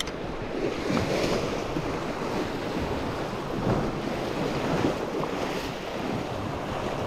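Sea surf washing over a rock ledge, with wind buffeting the microphone.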